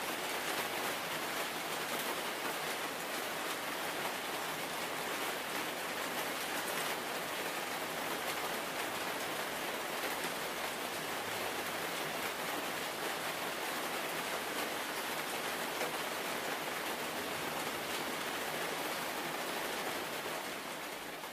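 Steady rain, an even hiss with no single drops or other events standing out.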